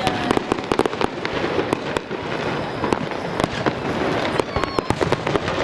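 Aerial fireworks display: a rapid, irregular run of sharp bangs and crackles from shells bursting in the sky.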